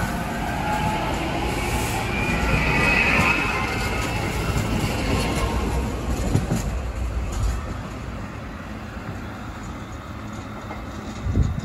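SEPTA Silverliner IV electric commuter train running past and moving away. The wheels give a high-pitched squeal a few seconds in and click over the rail joints, and the sound fades as the train recedes. A short thump comes near the end.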